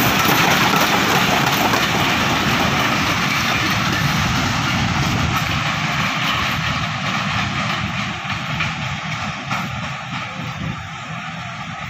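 Container freight train's wagons rolling on the rails, a steady rumble that slowly fades as the last wagon passes and the train moves away.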